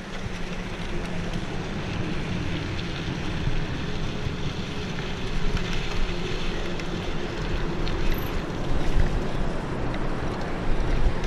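Wind rushing over an action camera's microphone as a cyclocross bike is ridden, with tyres rolling over gravel and then grass; a steady rush that slowly grows louder, with a few faint clicks.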